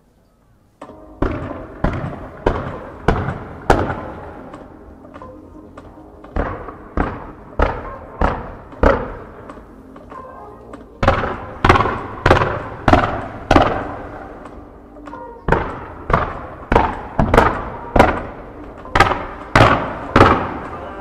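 Music with a heavy, evenly spaced beat of about one and a half hits a second, each hit echoing, starting about a second in; the beat drops out twice before coming back.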